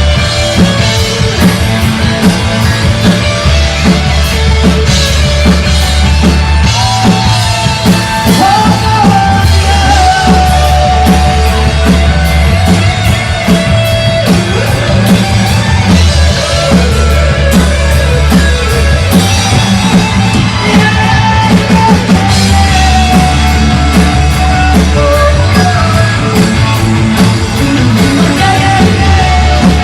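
Rock band playing live and loud: drum kit, bass and guitar, with a held melodic line riding over the top.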